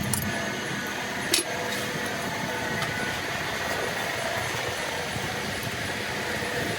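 Metal lathe running steadily, with a couple of sharp metallic clicks, one at the start and one about a second and a half in.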